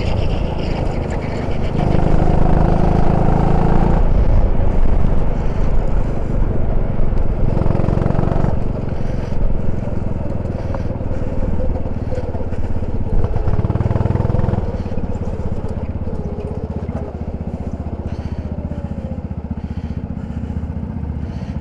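Go-kart engine heard from the driver's seat, rising and falling with the throttle. It settles to a quieter, steadier note over the last several seconds as the kart slows.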